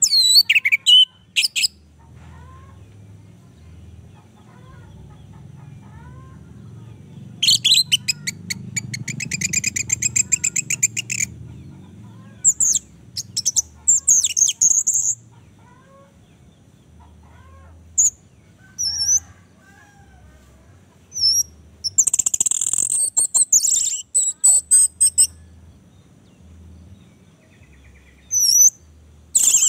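Orange-headed thrush singing in separate bursts of high whistles and chirps with pauses between. The song includes two long rapid buzzy rattles of a few seconds each, one about a quarter of the way in and one past the two-thirds mark.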